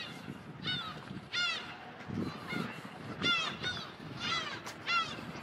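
Gulls calling over and over: short, clear calls that rise and fall in pitch, about one or two a second.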